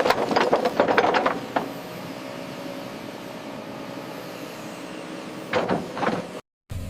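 Heavy construction machinery running with a steady hum, broken by a quick run of metallic clanks and knocks in the first second and a half and another short burst of clanks near the end; the sound cuts out completely for a moment just before the end.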